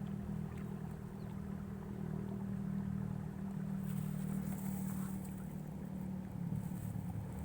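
A motor running steadily, a low even hum with a faint hiss rising in the upper range after about four seconds.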